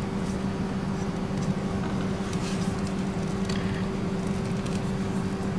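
A steady low mechanical hum with two constant tones, with scattered light clicks and rustles of a rubber boost hose being handled and pulled off.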